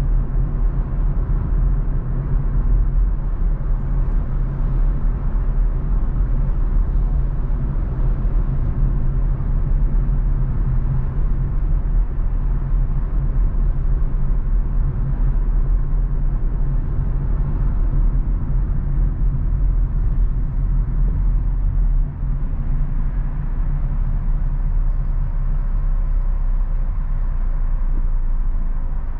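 Steady low rumble of a car driving on city streets, heard from inside the cabin: engine and tyre noise.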